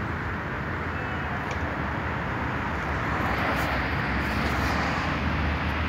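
Steady road-traffic noise, an even rush that swells a little about halfway through.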